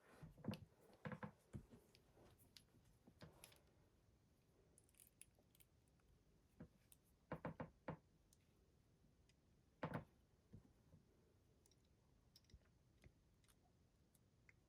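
Faint scattered clicks and light metal knocks of a Mindy AF16-50 padlock and lock-picking tools being handled, in small clusters near the start, about halfway through and around ten seconds in.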